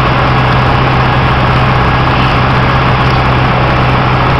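Piper PA-28 single-engine light aircraft heard from inside the cabin in cruise flight: a loud, steady drone of the piston engine and propeller with a strong low hum and airflow rush, unchanging in pitch.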